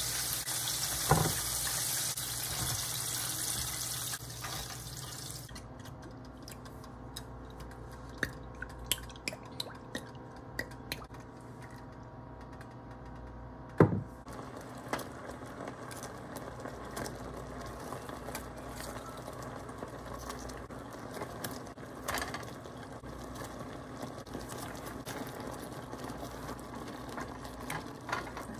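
Kitchen cooking sounds while making sauced chicken wings: a steady hiss for the first five seconds, then quieter, with a few light clicks of utensils against the pan and one sharp knock about 14 seconds in. Near the end comes the soft wet stirring of sauce and wings with a silicone spatula.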